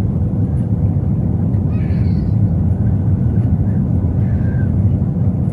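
Steady low rumble of an Airbus A321's cabin during landing, with a faint steady hum above it.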